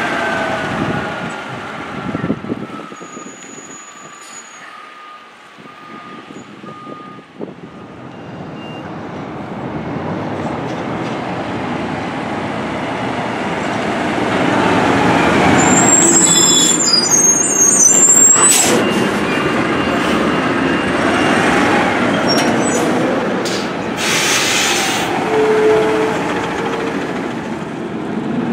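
Diesel side-loader garbage trucks driving past in turn, the engine and tyre noise falling away, then building to its loudest as the next truck passes about two-thirds of the way in. A high squeal sounds as that truck goes by, and there is a short air hiss a few seconds later, typical of truck air brakes.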